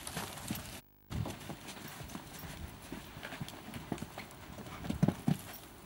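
Hoofbeats of a loose horse cantering on a sand arena, dull thuds in quick groups, with a brief break in the sound about a second in.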